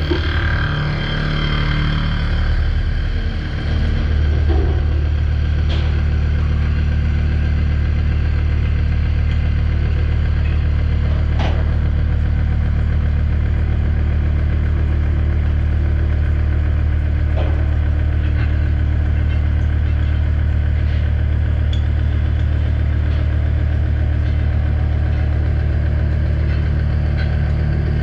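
Mazak horizontal machining center running while machining AR400 steel: a steady mechanical hum with a few faint ticks. The low hum shifts about four seconds in.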